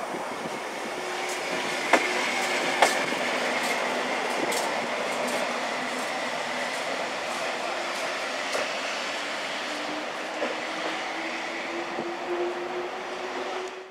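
Two coupled SNCF Z2 (Z 9500) electric multiple units running past and pulling away, with a steady rolling rumble and two sharp clacks of wheels over the track about two and three seconds in. A traction-motor whine rises in pitch near the end as the train speeds up.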